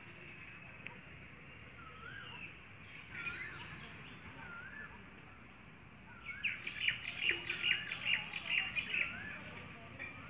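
Birds calling: one bird repeats a short rising-and-falling whistle every second or two. About six seconds in, a louder burst of rapid chattering calls joins it for about three seconds.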